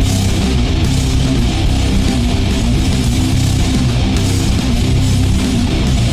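Loud rock song with strummed electric guitar, playing continuously.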